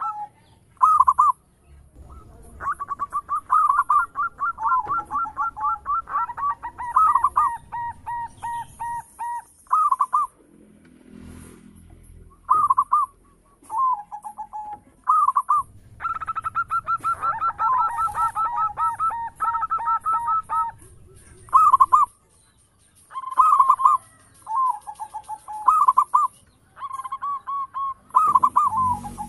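Zebra dove (perkutut) singing its cooing song: phrases of short, pitched coo notes, including two long runs of quick, evenly spaced notes, separated by brief pauses.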